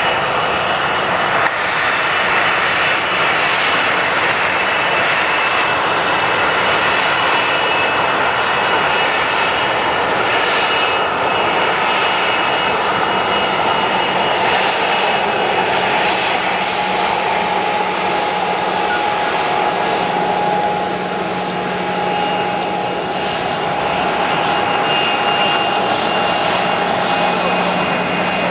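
Embraer ERJ-145's twin rear-mounted Rolls-Royce AE 3007 turbofans at taxi power as the jet taxis close by: a loud, steady jet rush with several high, steady whining tones over it.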